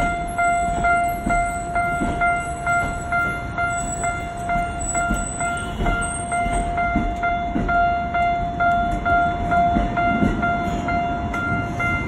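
Japanese railway level-crossing warning bell ringing in a fast, steady repeating pulse, over the low rumble and wheel knocks of a Tokyo Metro Ginza Line train passing over the crossing.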